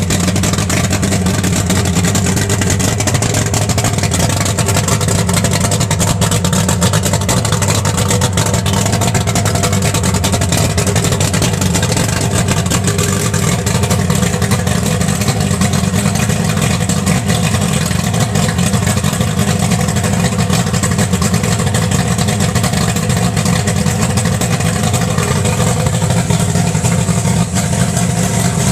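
Mercury Racing outboard engine running steadily at a constant speed.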